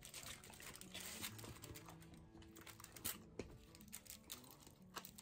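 Faint background music, with a few soft clicks of a Shiba Inu chewing a piece of chicken gizzard.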